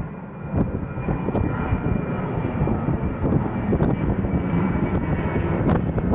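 Jet airliner engines at takeoff power: a steady rumble with a faint high whine.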